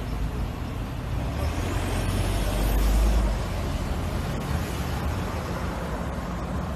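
Road traffic: cars driving slowly past close by, a steady rumble that swells loudest about three seconds in.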